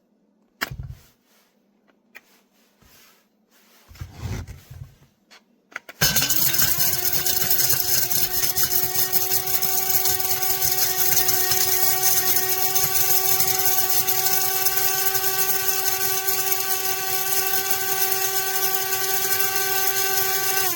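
SHARDOR electric coffee and spice grinder's motor starting about six seconds in and running at a steady pitch, grinding cinnamon stick pieces in its stainless steel bowl. A couple of faint knocks come before it.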